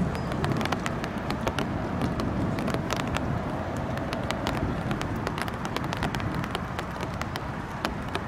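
Steady outdoor city background noise with a low rumble, peppered with many sharp, irregular ticks; no distinct thunderclap.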